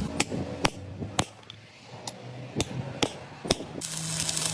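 Hammer blows during repair of a semi-truck's damaged leaf springs: about seven sharp strikes, roughly half a second apart. Near the end a steady machine noise with a low hum starts.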